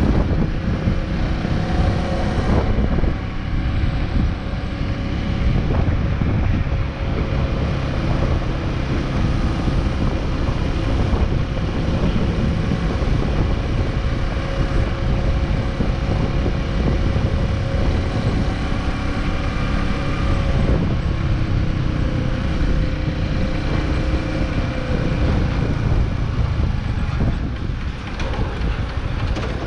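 Big Boy SuperLight 200cc motorcycle's single-cylinder engine running at a steady road speed, its note shifting a few times as the throttle changes, with wind noise on the microphone.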